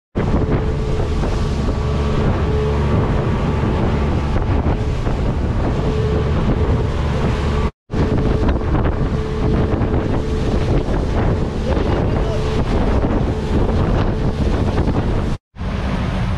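Fishing boat running at speed across open sea: a steady engine hum under loud wind buffeting the microphone and rushing water. The sound cuts out for an instant twice.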